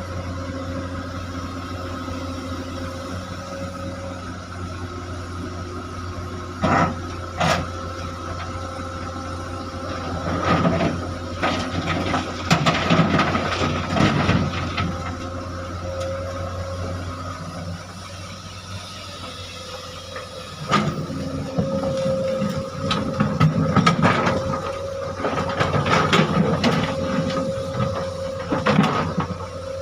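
Excavator's diesel engine running with a steady hydraulic whine. Two sharp knocks come about seven seconds in, then longer stretches of clatter and grinding as boulders are moved and loaded.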